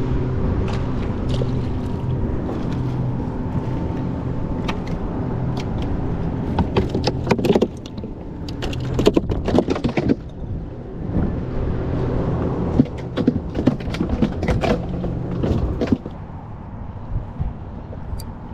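A steady engine hum that cuts out about sixteen seconds in. Through the middle there is a cluster of sharp knocks and clatter.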